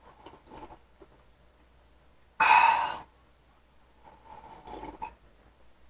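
A man drinking juice from a glass, with soft gulping sounds and one short, loud sigh-like breath about two and a half seconds in.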